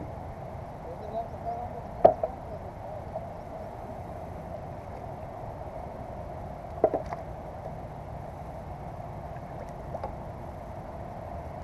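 Two sharp knocks on a plastic sit-on-top fishing kayak, about five seconds apart, with a faint click later, over a steady background hiss.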